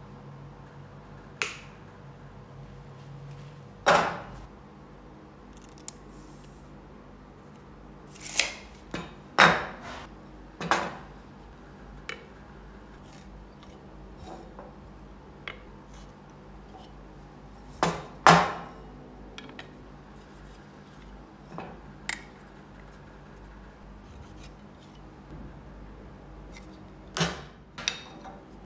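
Scattered sharp knocks and clatter of a wooden blank and hand tools being handled and set down on the metal bed of a stationary wood lathe, about a dozen separate knocks over a low workshop hum.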